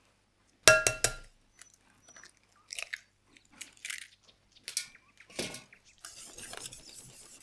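An egg rapped once on the rim of a glass bowl: a sharp knock with a brief ring. Small crackles follow as the shell is pulled apart, and near the end a wire whisk beats the egg into kefir in the bowl with a soft, even swishing.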